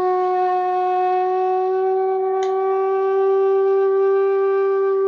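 Bansuri (Indian bamboo transverse flute) holding one long, steady note, rich in overtones.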